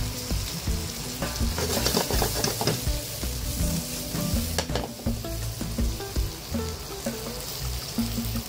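Shrimp and mushrooms sizzling in butter sauce in a hot pan, with a steady hiss. The food is tossed and stirred in the pan, giving a few clattering knocks in the first half.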